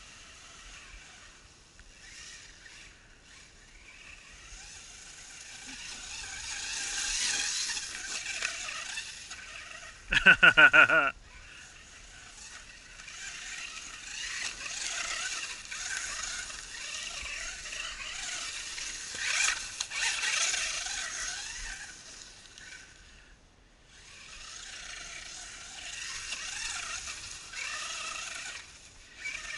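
Brushed electric motor and gear drive of a 1/10 FS Racing Marauder RC monster truck running on a 3S LiPo, whining up and down with the throttle in several bursts as it drives over leaf-covered ground. A short, loud, shout-like cry breaks in about ten seconds in.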